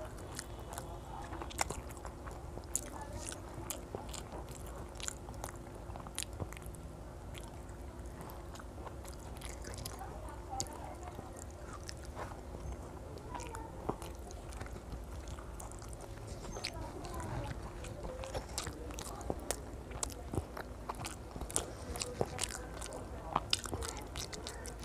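A boy chewing and eating soft rice and fish curry by hand, with scattered wet mouth clicks and smacks. A steady low hum runs underneath.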